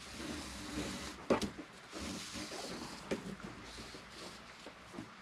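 Braided Dyneema line being pulled through its own weave and dragged over a wooden tabletop: soft rustling and scraping of the rope, with a few light knocks about a second in, at about three seconds and near the end.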